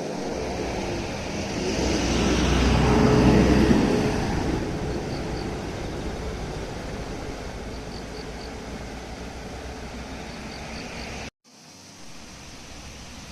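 A road vehicle passing close by: the sound swells to its loudest about three to four seconds in, then slowly fades away over a steady rushing background.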